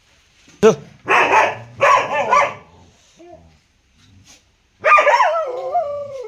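A dog barking: a sharp bark, then two more pitched barks, and near the end a longer drawn-out call that falls in pitch.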